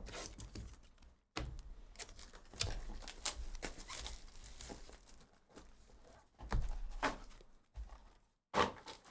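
Packs of Panini Court Kings basketball cards being opened and sorted by hand: wrappers crinkling and tearing, with quick clicks and light thumps of cards on the table, stopping and starting a few times.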